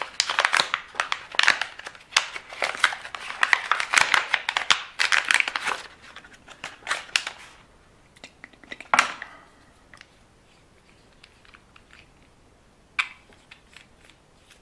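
Dense crinkling and tearing from hands working some crackly material for about seven seconds, then a few light clicks and taps.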